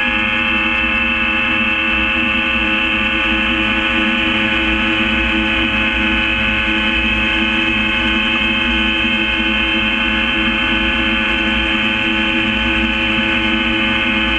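Gyrocopter engine and propeller running at a steady speed: a constant drone with several fixed tones over a low rumble, holding even throughout.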